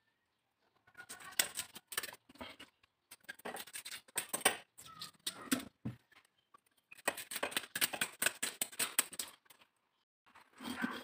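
Whole tilapia being handled on a plastic cutting board in a stainless steel sink: scattered scrapes, knocks and clatter come in short clusters, with silent gaps between them.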